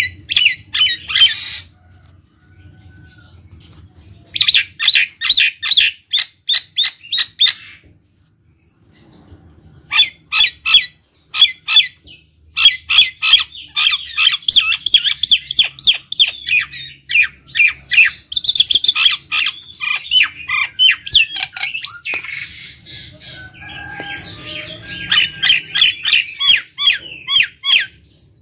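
Common myna (jalak nias) in full song: runs of short, sharp, rapidly repeated call notes, several a second, in phrases broken by brief pauses about two and eight seconds in.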